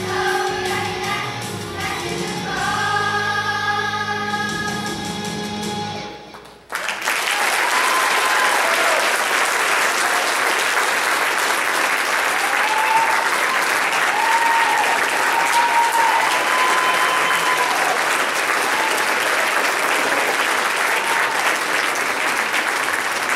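A children's choir with instrumental backing sings a final held chord, which ends about six seconds in. An audience then breaks into loud, steady applause that carries on.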